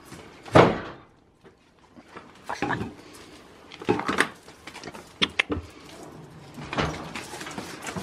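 Goats jostling in a wooden goat house: a string of separate bumps and knocks against the boards, the loudest about half a second in, with quieter knocks every second or so after a short lull.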